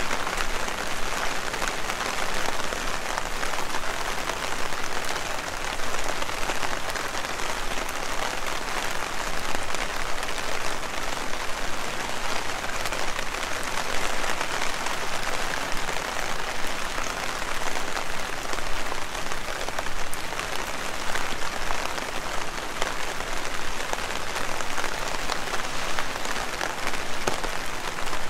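Heavy rain falling steadily, a dense, even patter of drops.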